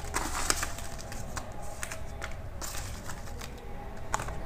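Folded paper slips being rummaged by hand in a small plastic basket: quiet, scattered rustles and light taps.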